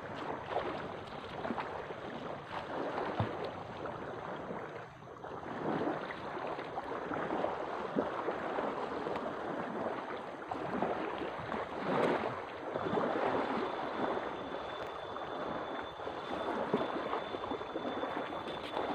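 Small lake waves lapping and sloshing at a stony shore, a steady wash of water noise with a few louder swells, mixed with wind on the microphone.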